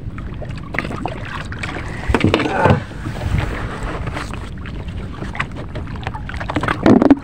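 Wind buffeting the microphone and water moving around a small outrigger fishing boat, a steady low rumble with scattered light knocks. Short voice sounds come about two seconds in and again near the end.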